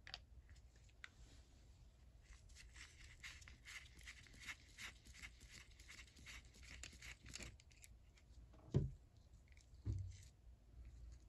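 Screwdriver backing out the small cover-plate screws on a vintage Billings S-1410 ratchet head: a run of faint, quick scratchy clicks, then two dull thumps near the end, the first the loudest.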